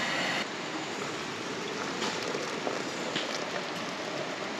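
Steady, even hiss of outdoor background noise with a few faint ticks; it drops a little in level about half a second in.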